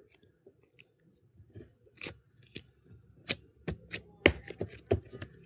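Soft clay butter slime being squished and pressed by hand, giving a string of irregular sharp clicks and pops that come thicker in the second half.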